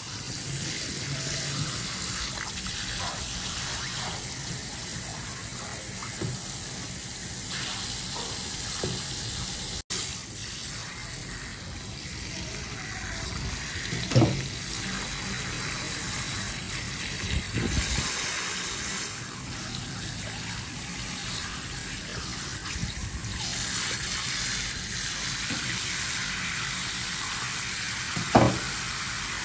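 Steady running water, like a kitchen tap running into a sink, with two short knocks: one about halfway through and one near the end.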